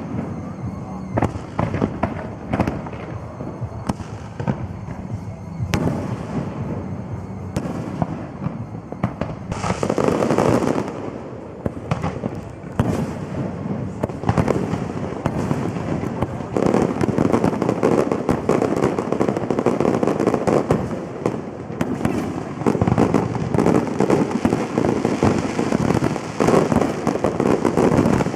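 Fireworks display: separate sharp bangs of bursting shells at first, then from about ten seconds in a dense, near-continuous barrage of rapid bangs and crackle.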